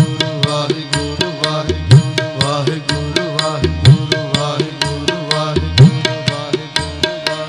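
Instrumental kirtan music: tabla playing a fast rhythm, with a deep rising bass stroke about every two seconds, over a sustained melodic accompaniment.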